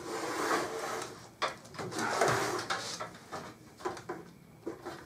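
Thin metal motherboard I/O shield being pushed and worked into a PC case's rear opening, scraping and rubbing against the case with several short sharp clicks. One bottom corner has not yet snapped home with its clicking pop.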